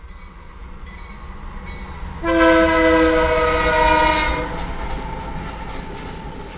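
A diesel freight train rumbles in, led by a GE Dash 9-44CW locomotive. About two seconds in, the locomotive's air horn sounds one chord of several notes for about two seconds. After that the rumble and clatter of the locomotives and cars rolling past go on.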